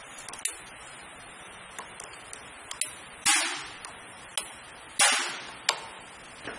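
Scattered metallic clicks and taps from a hand tool working on the capping head of a vial filling-and-capping machine, with two loud hissing bursts, each fading over about half a second, near the middle and about five seconds in.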